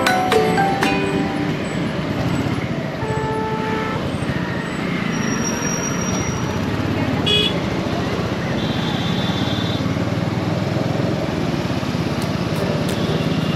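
Motorcycle engine and road noise while riding through city traffic, with vehicle horns sounding briefly a few times: a short honk about three seconds in and a longer higher one about nine seconds in.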